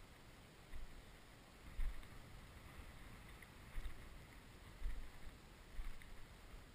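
Footsteps walking slowly through dry cut rapeseed stubble, heard as dull thuds about once a second with light crackling of dry stalks, picked up by a body-worn camera, with some wind rumble on the microphone.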